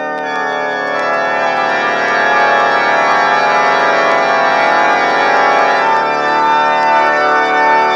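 A vinyl LP of sustained organ music playing on a homemade turntable, with scattered clicks of surface crackle.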